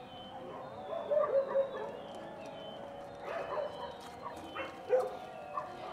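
Dogs barking and yipping, short calls about a second in, again around three to four seconds in and once near five seconds.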